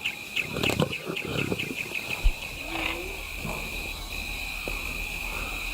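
Lions giving a few short, low calls in the first second or so, over a steady high chirping of insects in the bush.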